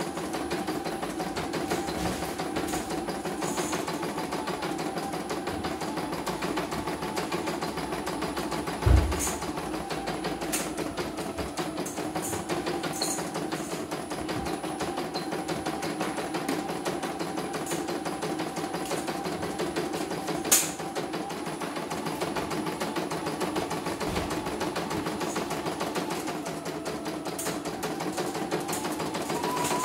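CNF computerized embroidery machine stitching a design, its motor and needle running steadily. Two sharp knocks stand out, about nine and twenty seconds in.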